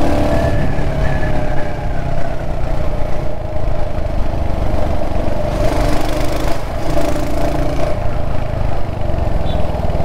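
Royal Enfield Hunter 350's single-cylinder engine running through its stock exhaust at a steady cruising pace in city traffic, a rapid low beat of exhaust pulses.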